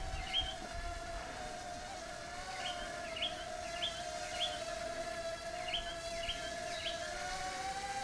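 Huajun W606-16 Volcano mini drone's propellers buzzing steadily while it hovers, the pitch wavering and beating as the motors adjust. A bird chirps in the background with short rising notes.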